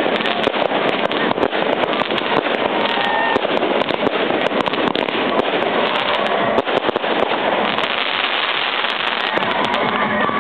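Fireworks going off: a dense, steady run of sharp crackling pops and bangs over a continuous noisy background.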